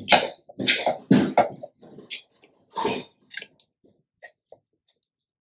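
Short wordless sounds from a person's voice, like coughs or throat clearing. They come as a quick cluster in the first second and a half, with another about three seconds in and a few faint ones after.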